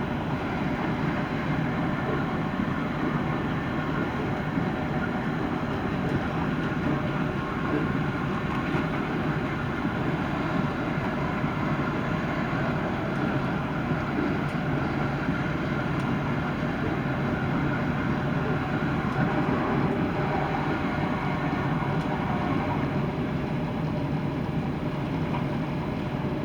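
Class 170 Turbostar diesel multiple unit running steadily at speed, heard from inside the train: its underfloor diesel engines and transmission howl over the noise of the wheels and track.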